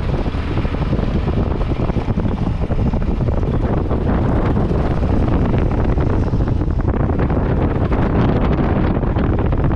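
Strong wind buffeting the microphone: a loud, steady, rumbling rush with constant gusty crackle.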